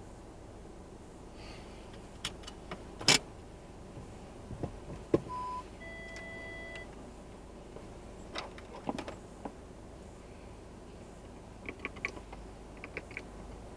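Scattered clicks and knocks inside a stopped car's cabin, the loudest about three seconds in. About five seconds in comes a short beep, then a brief electronic chime of a few steady tones.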